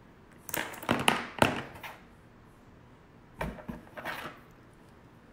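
Sharp clicks and knocks of makeup containers being handled and set down on a table, in two short clusters: a quick run of clatters from about half a second to two seconds in, then a few more near three and a half seconds.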